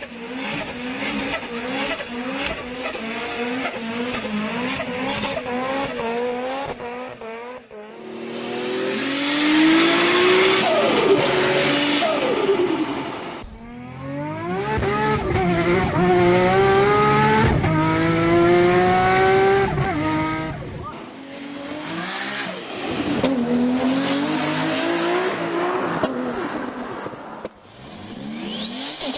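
Turbocharged car engines accelerating hard in a run of short back-to-back clips. The engine pitch climbs and drops back at each gear change, where the turbo flutters on throttle lift-off.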